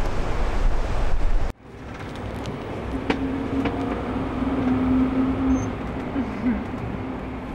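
Wind buffeting the microphone over breaking surf. About a second and a half in it cuts off suddenly to a vehicle's cabin noise while driving: a steady road rumble with a low engine hum, and a couple of faint clicks.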